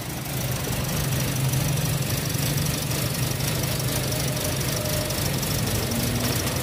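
2017 Toyota Vios engine running at idle, heard with the hood open, a steady hum with a faint high whine over it. It gets a little louder about half a second in. The engine is being checked for a rough, unstable idle, and its running is called very loud.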